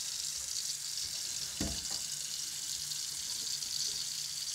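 Tap water running steadily into a stainless steel kitchen sink, with one short thump a little under two seconds in.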